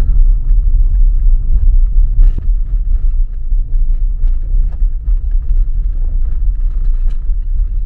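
Steady low rumble of a car driving along a road.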